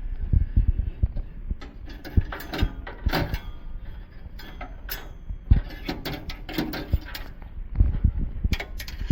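Irregular knocks, clicks and light rattles of hands handling hard objects, with heavier low thumps near the start and near the end.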